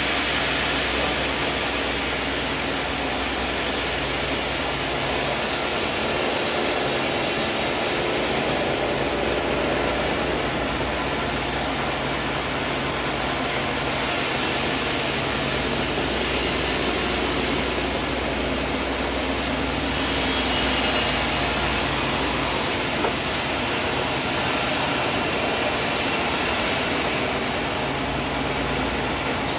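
Sawmill saw running steadily: a loud, continuous machine noise with no letup.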